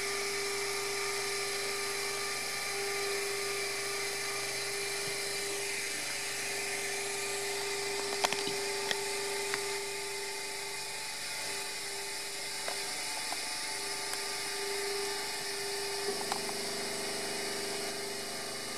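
Ultimaker 2 3D printer running, its fans giving a steady whine, with a few faint ticks about eight seconds in and again near the end.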